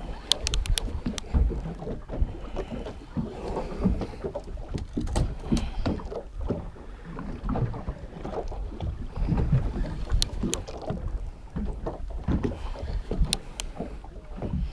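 Wind gusting across the microphone and water slapping against a small boat's hull, an irregular low rumble, with a few sharp clicks.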